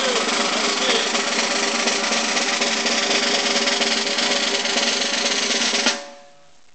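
Snare drum roll held at a steady level, stopping abruptly about six seconds in.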